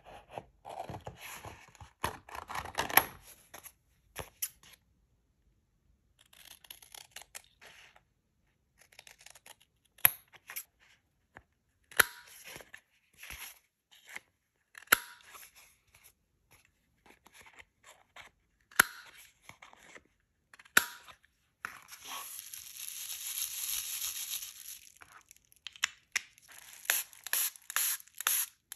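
Paper being torn and handled in paper crafting, with many short rustles and sharp taps. A steadier rasp lasts about three seconds, about three-quarters of the way through.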